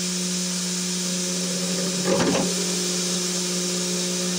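3018 CNC mill's spindle running with an end mill cutting aluminium: a steady hum with a hiss above it. About two seconds in comes a brief, louder, rougher burst, the kind of chatter the cutter makes when it goes back into the cut.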